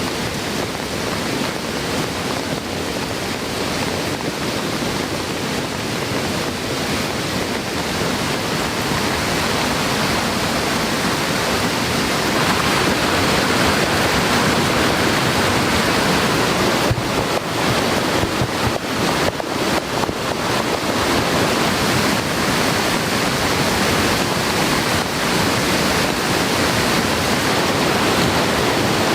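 Heavy rain falling over a swollen mountain stream: a steady rush of water that grows a little louder about twelve seconds in.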